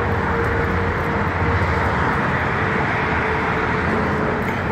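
Road traffic noise: a steady rush of vehicles and tyres, with a faint engine hum.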